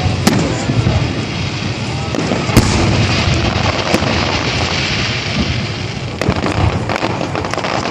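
Fireworks display: a continuous din of crackling bursts with sharp bangs at the start, about two and a half and four seconds in, and several more close together near the end.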